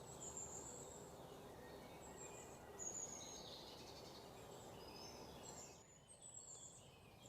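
Faint birds chirping, with many short high calls, over a steady low background noise. The background noise drops away about six seconds in.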